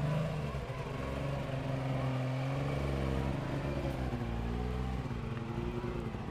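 Small Suzuki 4x4's engine working hard under load as it crawls up a rocky gully, the revs rising and falling as the driver feeds the throttle.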